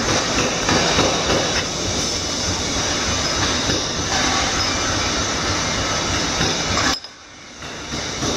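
Continuous loud clattering din of blacksmith-workshop machinery. It drops away suddenly about seven seconds in and returns about a second later.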